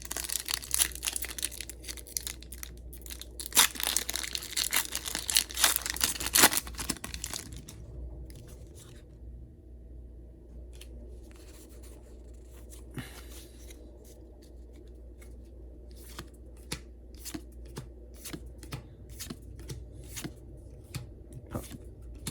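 Pokémon booster pack's foil wrapper being torn open and crinkled for the first several seconds, then the cards being handled, with a scatter of light clicks and flicks.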